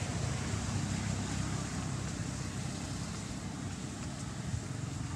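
Steady outdoor background noise: a low rumble under an even hiss, with no animal calls.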